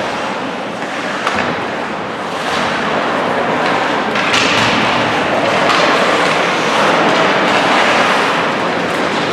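Ice-hockey game noise in a rink: a steady rushing din with a few sharp knocks, growing louder about four seconds in.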